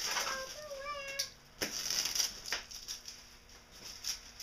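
Bubble wrap rustling and crinkling as it is pulled and handled, with several sharp crackles, loudest about two seconds in. There are a few short squeaks in the first second.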